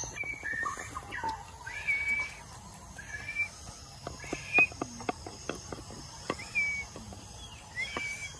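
Birds calling with short whistled notes, repeated several times, over scattered light clicks and crackles, the loudest a sharp click about halfway through.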